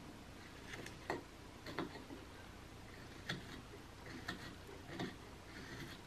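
Carving knife slicing small chips off a basswood block in short paring cuts: faint, irregularly spaced ticks and scrapes of the blade, about six of them.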